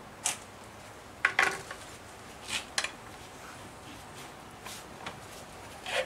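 Several sharp metal clinks and clanks, a second or so apart, with a cluster of them about a second and a half in, from hands working on a Soviet Veterok 8 outboard motor with its spark plugs out as its flywheel is gripped and turned by hand.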